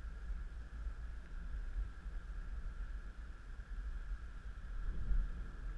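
Steady low rumble of road and engine noise inside the cabin of a 2013 Toyota Corolla driving at road speed, with a faint steady high hum above it.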